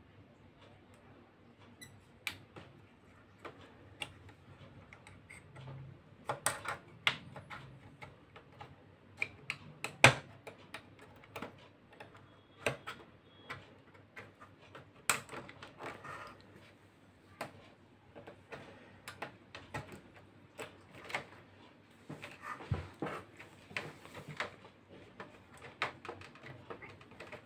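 Craft knife cutting a circle in an LED TV backlight reflector sheet, guided round a plastic stencil hole: an irregular run of small scratches and sharp ticks, the loudest click about ten seconds in.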